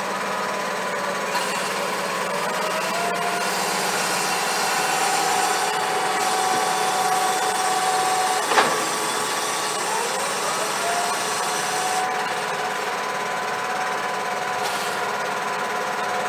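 John Deere 6155R tractor running while it is manoeuvred to hitch a trailer, a mechanical whine that rises and falls in pitch several times. A single sharp clunk about halfway through.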